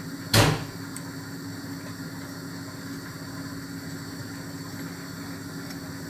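A single sharp knock about half a second in, from blender parts or a tool being handled while the rotor is jammed, over a steady low hum.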